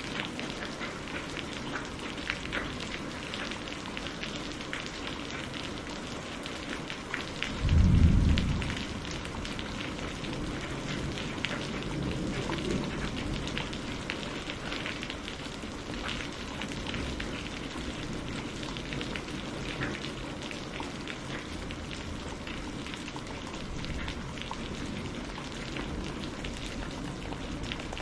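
Steady rain falling on a surface, full of fine sharp drop ticks, with a single loud thunderclap about eight seconds in that trails off into a lower rumble over the next few seconds.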